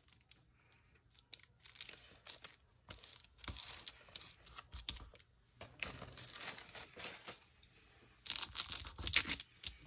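Paper rustling and crinkling in short, irregular bouts as craft pieces are handled, with a few light taps; the busiest stretch comes near the end.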